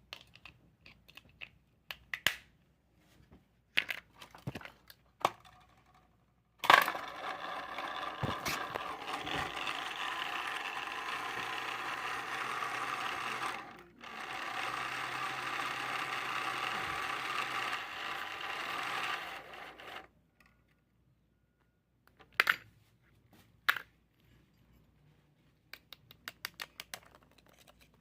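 Clicks and taps of small parts being handled, then a remote control car's small electric motor whirring steadily for about thirteen seconds, stopping briefly about halfway, followed by more clicks.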